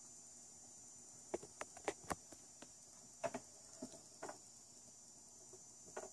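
Faint handling noise: a scatter of light, irregular clicks and taps over a steady high hiss, bunched in the first half and once more near the end.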